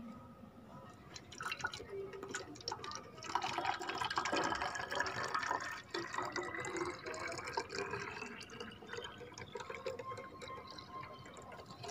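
Water poured from a metal mug into a small plastic bottle, splashing and trickling, with a tone rising in pitch as the bottle fills. Water spurting from holes in the bottle drips and spatters onto a steel plate.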